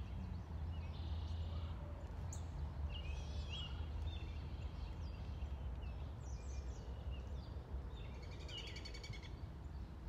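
Several short bouts of birds chirping and calling over a steady low rumble.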